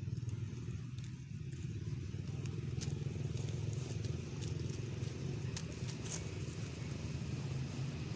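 A steady low rumble throughout, with scattered faint crackles of dry leaves being moved on the ground.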